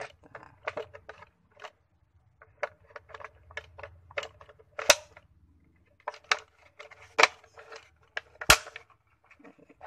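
Sharp plastic clicks and knocks, with small rattles between them, as an electric fuel pump is pushed and seated into its plastic fuel-pump module housing. Three loud clicks come about five, seven and eight and a half seconds in.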